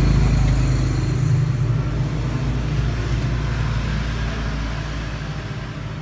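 Motor vehicle engine running with a steady low hum that slowly fades.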